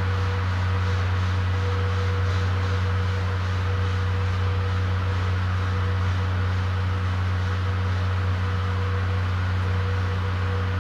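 DMF15HZ-G diesel generator engine under the floor of a JNR 14-series Suhafu 14 passenger car, running at a steady speed to supply the train's lighting and air-conditioning power: a constant low drone with a fainter higher hum.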